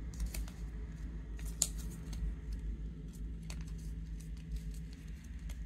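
Sheet of printer paper crinkling and crackling in the hands as a folded origami frog is squeezed and one part is worked into a pocket of the other, with irregular small crackles.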